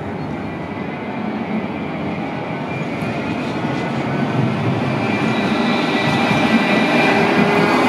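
Luas tram, an Alstom Citadis light-rail vehicle, approaching on street track: a steady running hum with a faint high whine, growing gradually louder as it comes closer.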